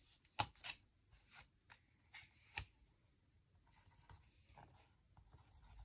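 Faint pencil scratching on paper while marking circles for punched holes, with a few light taps and clicks.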